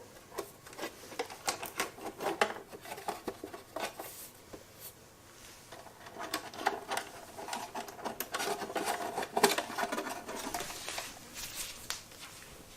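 Irregular clicks, taps and scraping of small parts being handled, in uneven clusters with a quieter stretch around the middle.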